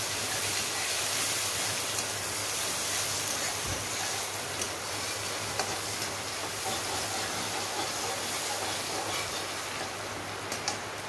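Food sizzling steadily in a metal wok on a gas burner while a metal spatula stirs it, with a few light clinks and scrapes of the spatula against the pan.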